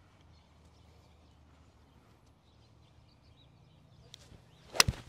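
A golf driver striking a ball off the mat in a full swing: one sharp, loud crack of impact near the end, after a few seconds of faint quiet.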